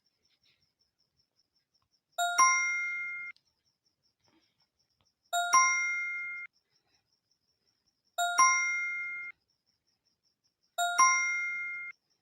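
A two-stroke 'ding-dong' chime sounds four times, about every three seconds. Each ring lasts about a second and then stops abruptly.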